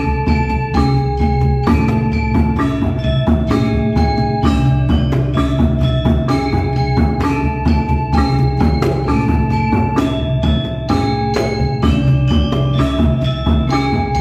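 Gamelan ensemble playing: metallophones struck in a rapid, steady stream of ringing notes over a low drum.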